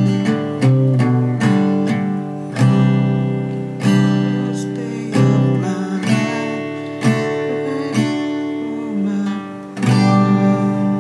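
Acoustic guitar played alone: chords strummed and left to ring, a new chord roughly every second, with a last chord struck near the end and left ringing.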